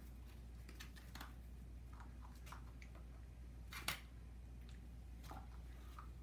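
Sheltie puppy chewing and pawing at a torn piece of cardboard: faint scattered rustles and clicks, with one sharper click about four seconds in, over a low steady hum.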